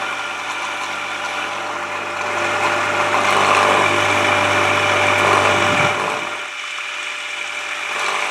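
Partner electric power washer's motor and pump running with a steady mains hum, now running properly instead of just buzzing. About six seconds in the sound eases and carries on more quietly.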